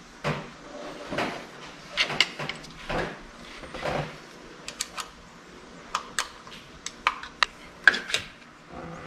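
Handling noises from a milling machine motor's loose forward/reverse switch and its wiring being worked free: scuffs and rustling, then a run of short sharp clicks and light metallic clinks in the second half.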